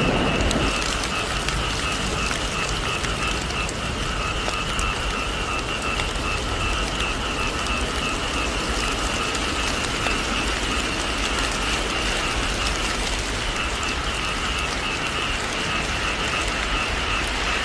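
Heavy rain falling steadily on a roof in a dense, even patter, with the tail of a thunder rumble fading out in the first second.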